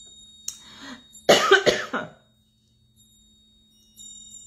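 A woman coughing and clearing her throat because of a tickle in it. There is a small cough at about half a second, then a loud cluster of several harsh coughs about a second in.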